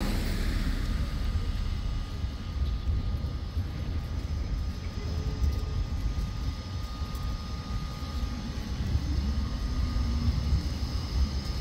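Outdoor city-street ambience: a steady low rumble that rises and falls, with a faint, thin high whine held throughout.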